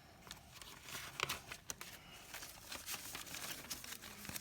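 Paper bills and cash envelopes rustling and crinkling as they are handled, with scattered soft clicks and flicks.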